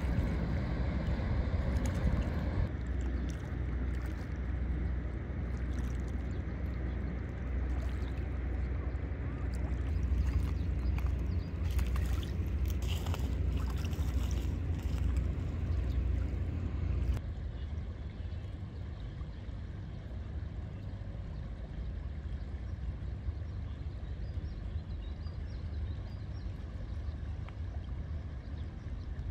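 Steady low rumble inside a moving vehicle, with no voices. The higher part of the noise falls away about three seconds in, and the low rumble eases a step about 17 seconds in.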